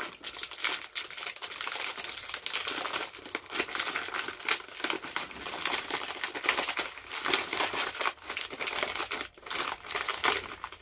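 Snack packaging being crinkled and torn open by hand: a continuous run of rustling and sharp crackles.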